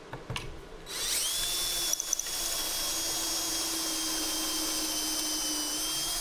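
Cordless drill boring pocket holes in a walnut leg with a stepped pocket-hole bit in a Kreg jig. A few clicks come first, then the drill starts about a second in and runs steadily with a high whine that dips slightly in pitch as it bores into the hardwood.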